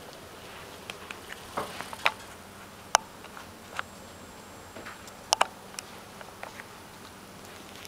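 A ferret grooming itself close up: irregular sharp wet clicks and smacks of licking, the loudest a little after 2 s, near 3 s and a quick pair just after 5 s.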